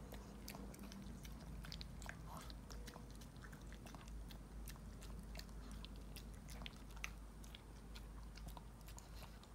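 A Shih Tzu eating wet food from a ceramic plate: faint, irregular chewing and mouth clicks.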